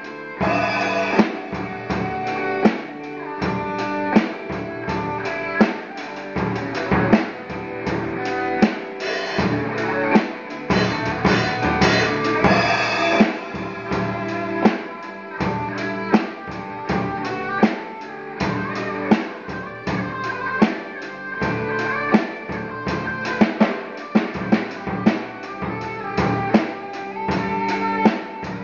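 Electric guitar playing over a drum kit beat, with sharp drum hits throughout.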